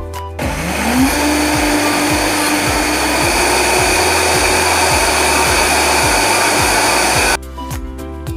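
Countertop blender motor spinning up with a rising whine, then running steadily while puréeing a yellow mixture, and stopping abruptly about seven seconds in.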